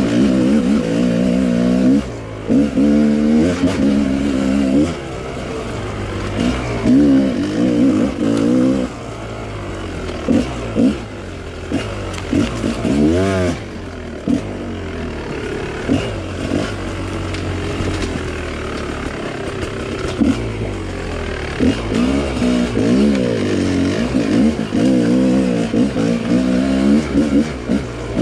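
2018 Gas Gas 250XC two-stroke dirt bike engine revving up and down as the throttle is worked on and off over rough, rooty trail. The middle stretch is quieter, at lower, steadier revs.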